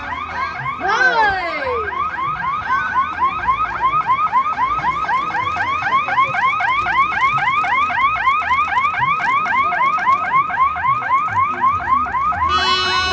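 Electronic siren or alarm yelping, a fast steady run of rising sweeps, about five a second. A sliding tone cuts across about a second in, and a steady horn-like tone comes in near the end.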